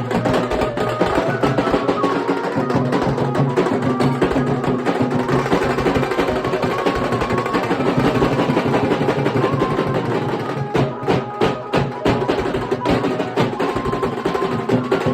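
Nashik dhol band playing: fast, dense dhol drumming with a held melody line on top, broken by a few sharp accented strokes about eleven seconds in.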